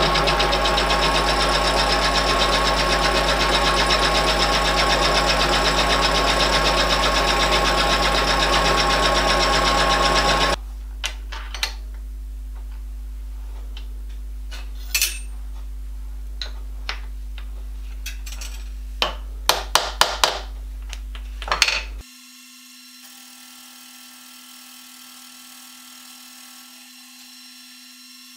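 A milling machine's end mill cuts into an aluminium bronze crosshead with a loud, steady grinding noise for about ten seconds. The cut then stops, and the machine hums quietly while metal clicks and knocks sound as the part is handled in the vise. From about two thirds of the way in, only a quieter steady machine hum remains.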